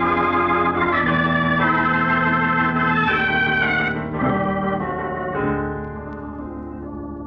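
Organ music bridge between radio drama scenes: sustained organ chords that shift every second or so, turning quieter and lower about five and a half seconds in.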